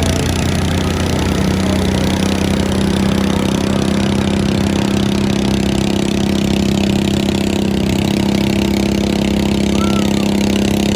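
Pulling lawn mower's engine running loud and steady, its note firming up about a second and a half in and then holding.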